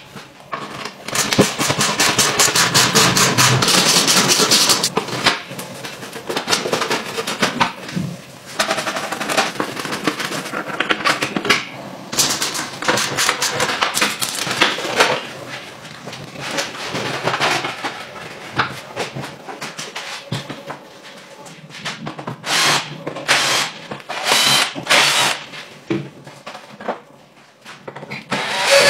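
Workshop sounds of a pocket bike being stripped: a fast mechanical rattle that stops after about five seconds, then knocks and scrapes of plastic fairing panels being pulled off the frame. Near the end come a few short runs of a cordless drill boring into the fuel-tank cap.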